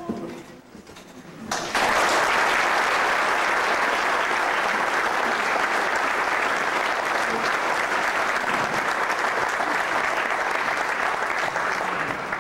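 Audience applauding, breaking out suddenly about a second and a half in and holding steady.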